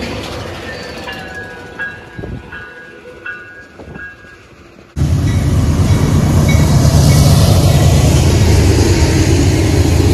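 A yellow Loram rail-maintenance train rolls past at moderate level with a few short high tones. About five seconds in it cuts to a much louder, steady low rumble of BNSF-painted diesel freight locomotives passing close by, with their autorack cars behind.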